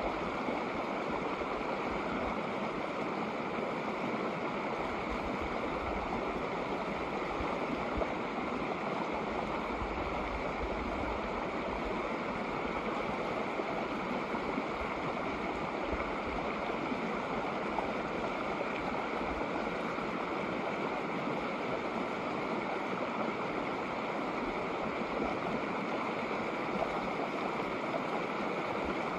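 Shallow snowmelt creek running over rocks: a steady, even rush of flowing water.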